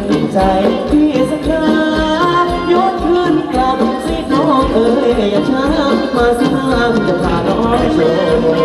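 Thai ramwong dance music from a live band: a sung melody over a steady, even drum beat, with jingling percussion.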